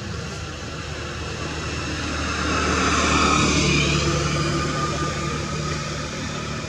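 A motor vehicle passing: engine hum and road noise swell to a peak about three seconds in, then fade.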